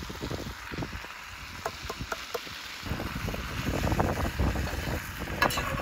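Wind buffeting the microphone in an uneven low rumble, with a few light clicks and scrapes of metal tongs tossing pasta in a cast iron skillet.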